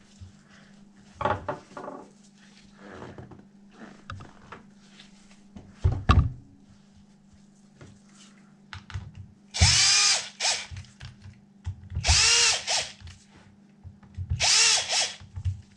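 Power drill running in three short bursts near the end, its motor whine rising and falling each time, with light clicks and knocks of handling between.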